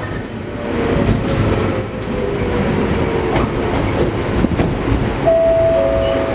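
JR 115-series electric train car (KuMoHa 115-504) running, heard on board: steady rumble of the wheels and MT54 traction motors with a faint motor whine, broken by a few rail-joint clacks. A steady high tone comes in about five seconds in.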